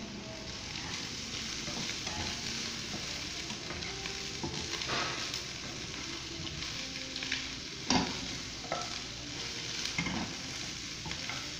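Shredded chicken, green bell pepper and onion sizzling in a non-stick frying pan as a spatula stirs them, scraping and knocking against the pan several times. The sharpest knock comes about eight seconds in.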